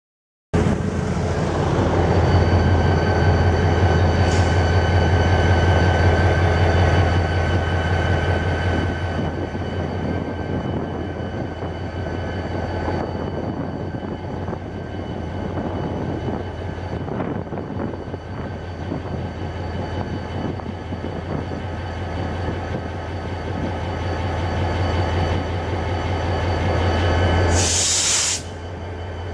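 Diesel locomotives, an EMD GT22 and a Materfer MTF3300, running with a steady low drone and a whine as the train pulls slowly away. Near the end comes a loud hiss of air about a second long.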